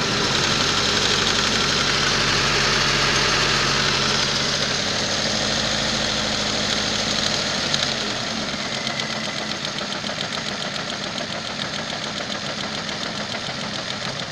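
Ford C-Max 2.0 engine running. About eight seconds in it settles a little quieter, with an uneven, regular pulsing. The owner says the engine is knocking and the car is shaking.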